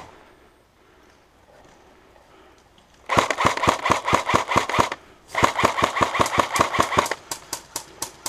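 Airsoft rifle firing two rapid full-auto bursts of just under two seconds each, starting about three seconds in, then a handful of spaced single shots near the end.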